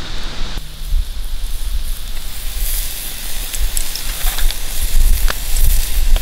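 Wood campfire crackling and hissing under slices of beef tongue sizzling on a wire grill, with scattered sharp pops over a steady low rumble.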